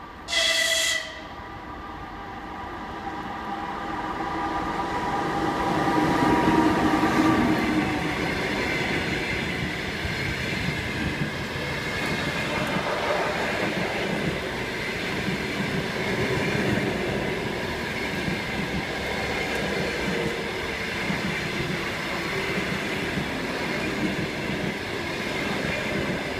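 EP2K electric locomotive gives a short, high horn blast lasting under a second, then comes past with a rolling rumble that builds to its loudest after a few seconds. Its express passenger carriages follow, rolling steadily past.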